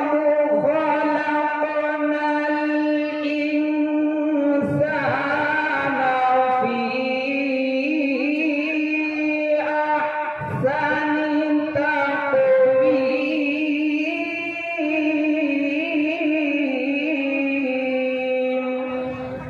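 Quran recitation in the melodic tajwid style: a single voice sustaining long, ornamented notes in three drawn-out phrases, with a brief breath between them about four and a half and ten and a half seconds in.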